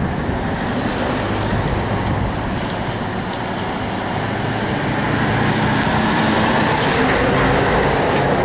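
Road traffic: a motor vehicle engine running steadily close by, getting gradually louder in the second half.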